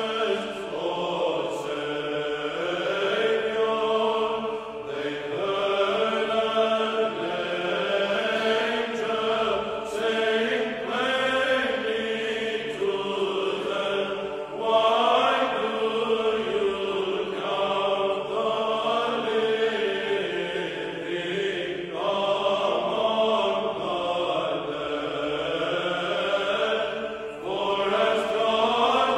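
Background music of slow sacred choral chant, voices holding long notes that shift in pitch from phrase to phrase.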